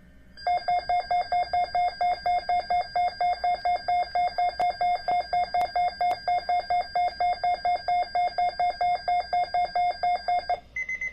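Alert-equipped weather radio receiver sounding its electronic alarm, a loud rapid beeping at about four to five beeps a second for about ten seconds, a sign that it has picked up an alert signal. It stops abruptly, and a few short, higher-pitched beeps follow near the end.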